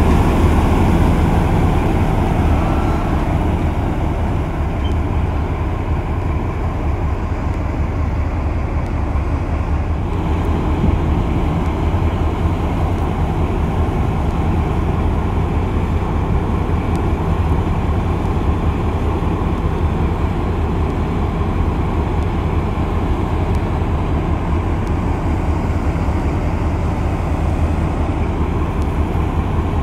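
Diesel locomotive engine running steadily, a loud, even low hum.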